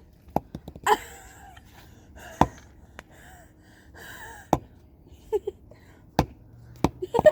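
A handful of sharp knocks, irregularly spaced a second or two apart, with soft breathing and brief murmurs between them.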